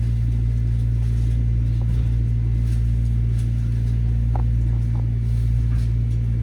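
Metro-North M7A electric railcar heard from inside while running: a steady low hum and rumble, with a couple of faint clicks a little past the middle.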